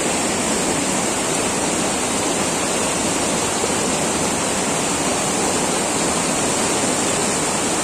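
Shallow rocky mountain stream rushing steadily over and between boulders in small cascades.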